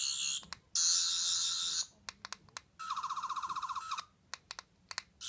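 Toy sonic screwdriver's electronic sound chip buzzing in short bursts of about a second each, with button clicks between them; the third burst pulses rapidly.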